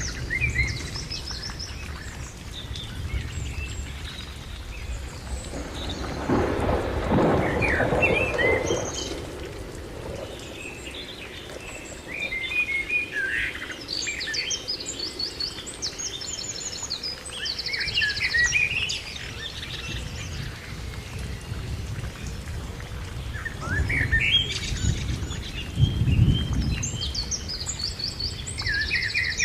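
Birds chirping and trilling over a steady rain-like hiss, with two low rolling rumbles like distant thunder, one about a quarter of the way in and one near the end.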